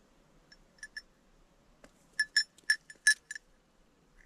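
Light metallic clinks with a bell-like ring: a few faint ones in the first second, then a quick run of six or seven louder strikes about two to three and a half seconds in.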